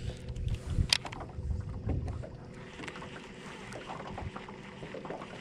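Wind buffeting the microphone and handling knocks on a fishing boat, with a sharp click about a second in. A faint steady hum runs underneath.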